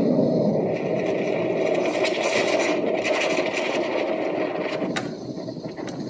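Espresso machine steam wand frothing milk in a stainless pitcher: a steady, noisy hiss of steam through the milk that eases off near the end.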